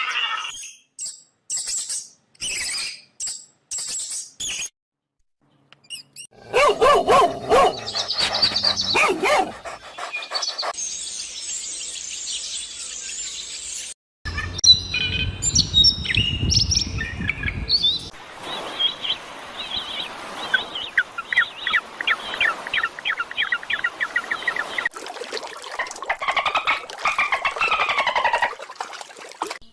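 A string of short animal-sound clips joined by sudden cuts, mostly birds chirping and calling, with a rapid trill in the second half.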